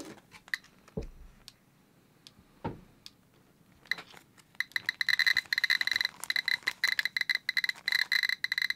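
GQ GMC-320 Plus Geiger counter beeping once per detected count against a thorium gas mantle. The short high beeps come sparsely at first, then speed up about four seconds in to a rapid, irregular chatter, the sign of the mantle's radioactivity pushing the count rate up. A couple of soft thumps come about one and three seconds in.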